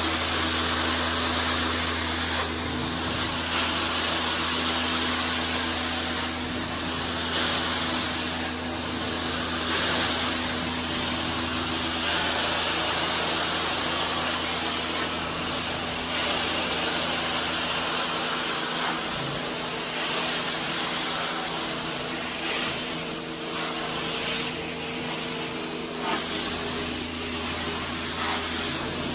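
Hot-water extraction carpet-cleaning wand being drawn across carpet tiles: steady vacuum suction with a spray hiss and a steady low hum underneath. The hum drops away about two-thirds of the way through.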